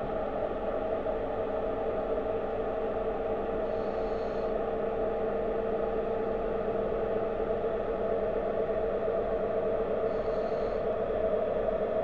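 Steady, muffled underwater ambient noise picked up by a submerged camera, with a faint brief hiss about four seconds in and again near the end.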